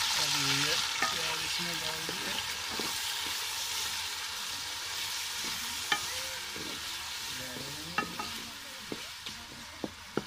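Sliced onions sizzling in hot oil in an aluminium pot, the hiss loud at first and slowly dying down as the oil cools under them. A wooden spatula stirs them, knocking against the pot a few times in the second half.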